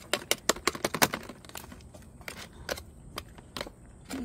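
A cat chewing food from a plastic tray: quick, irregular clicks and smacks, packed close together for the first second, then coming singly every half second or so.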